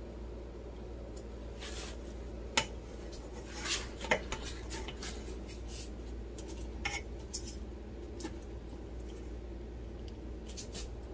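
A serving spoon clicking and knocking against a ceramic plate and a pot while rice is spooned out, a few scattered taps, the sharpest about two and a half and four seconds in, over a low steady hum.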